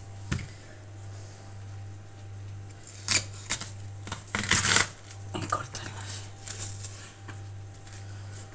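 Chef's knife cutting through spring onions on a plastic cutting board: a series of crisp cuts and knocks, the loudest cluster a little past the middle. A steady low hum runs underneath.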